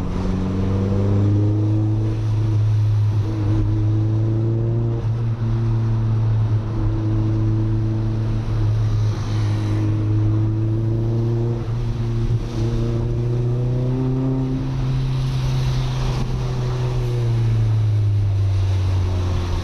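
Audi A3 1.8T's turbocharged four-cylinder engine pulling steadily through the gears with a constant drone. Its pitch climbs gently in the latter part and then drops near the end as the throttle eases.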